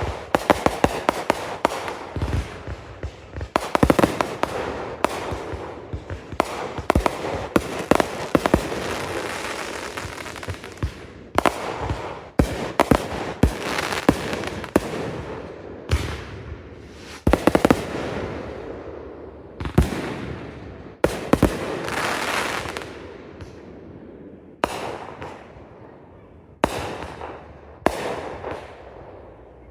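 Consumer aerial fireworks going off in quick succession: sharp bangs of shells bursting, some clusters of rapid crackling, each fading out in an echoing tail before the next shots a second or two later.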